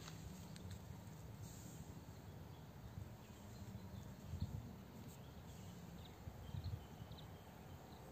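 Quiet garden ambience: a steady low rumble with a few faint high chirps in the second half and a couple of soft low thumps about halfway through.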